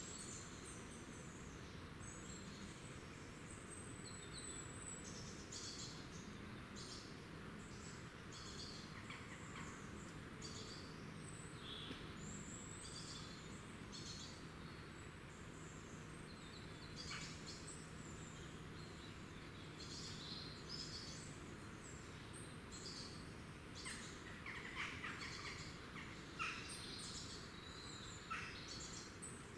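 Small woodland songbirds chirping and calling over a steady hiss: many short, high-pitched chirps and thin notes, with a busier flurry of calls in the last few seconds.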